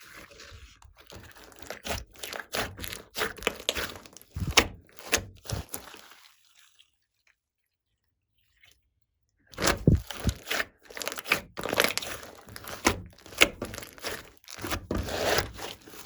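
Slime being squished and kneaded by hand, giving quick runs of sticky crackles and pops with soft low squelches. The sound stops for about three seconds a little past the middle, then picks up again.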